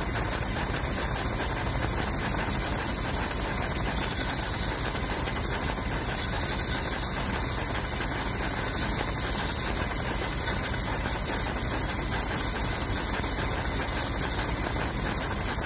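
Serpentine drive belt squealing steadily and high-pitched over an idling engine. The belt is slipping on its pulleys, which the owner puts down to the rubber having hardened.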